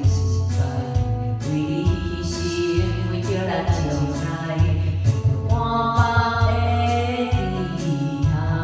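Karaoke: a woman singing through a microphone over a backing track with a steady bass beat.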